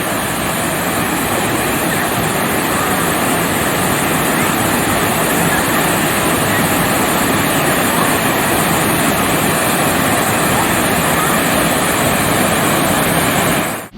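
Sgwd yr Eira waterfall's steady, loud rush of falling water, heard up close.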